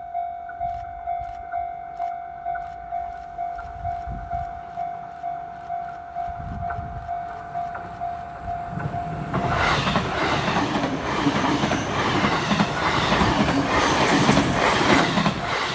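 Level-crossing warning bell ringing about twice a second. From about nine and a half seconds in, a JR E653 series electric multiple unit passes close by with a loud rush of wheels on rail, the bell still sounding underneath.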